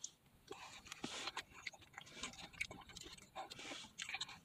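Faint scattered clicks and soft scrapes of a plastic fork in a foam takeout container as a forkful of fried rice is scooped up and eaten.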